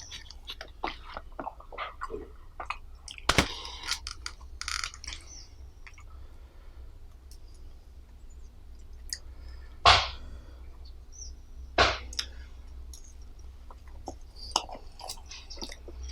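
Close-miked chewing and mouth sounds of someone eating, with scattered small clicks and three louder sharp knocks or crunches about 3, 10 and 12 seconds in.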